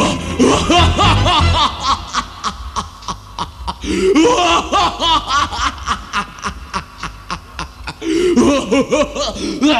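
A man's voice snickering and chuckling in short fits through a PA, over an even beat of sharp clicks, about four a second. The backing music with its bass line stops about a second and a half in.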